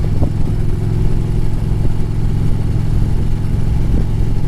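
Harley-Davidson Road Glide's V-twin engine running steadily as the motorcycle cruises along, its pitch holding even.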